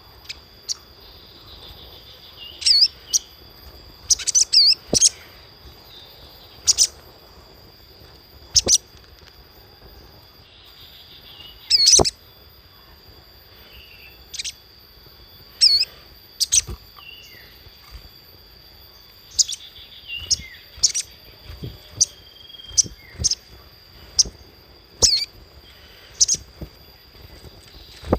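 Little spiderhunter (sogon) calling: short, sharp, high chirps repeated at irregular intervals, some in quick pairs or clusters, over a faint steady high-pitched tone. It is a lure recording played to get young captive birds to start singing.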